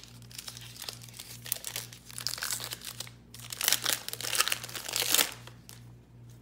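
Foil wrapper of a Panini Prestige 2018 football card pack crinkling and crackling as it is torn open by hand, loudest about four to five seconds in.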